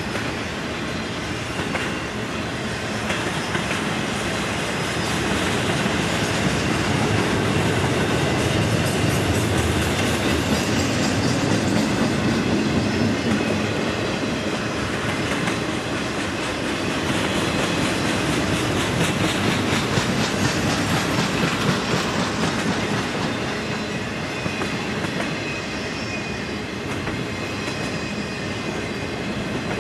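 Intermodal freight train of truck trailers on flatcars rolling past: a steady rumble of the cars with the clatter of steel wheels on the rails, swelling a little in the middle and easing toward the end.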